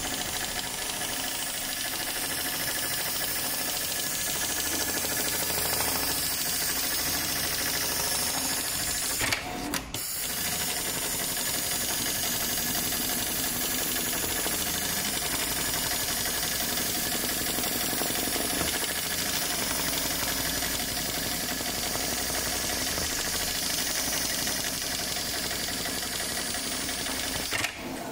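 HighTex MLK500-2516 programmable pattern sewing machine running at speed, sewing a stitch pattern through thick safety-harness webbing with heavy thread: a steady fast mechanical clatter. It pauses briefly about ten seconds in and stops just before the end.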